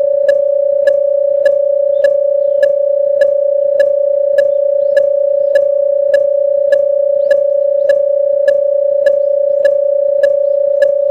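Railway station level-crossing warning alarm ringing for an approaching train: a steady electronic tone with a sharp click repeating evenly a little under twice a second.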